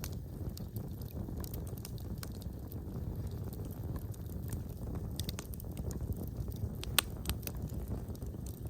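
Wood fire burning in a fireplace: a steady low rumble with scattered crackles and small pops, the loudest pop about seven seconds in.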